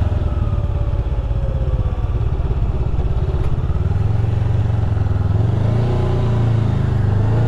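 Honda Rebel 500's parallel-twin engine running at low speed with a steady pulsing note, which grows stronger about four seconds in.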